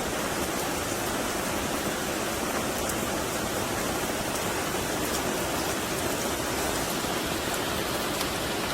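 Steady, even rushing of water, like heavy rain or a stream, with a few faint ticks.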